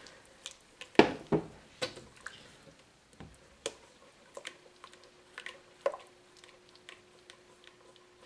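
A rubber spatula stirring a thick coconut-milk and masa harina pudding mixture in a stainless steel pot as it begins to thicken after boiling water was added: soft squishing with scattered knocks and taps of the spatula against the pot, the loudest about a second in.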